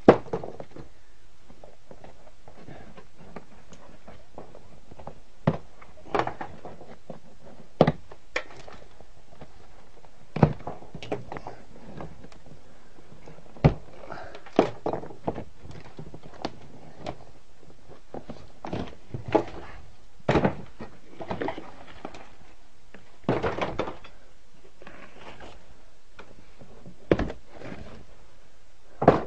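Irregular knocks and thunks, some fifteen spread unevenly with a few short clusters, over a steady low hiss.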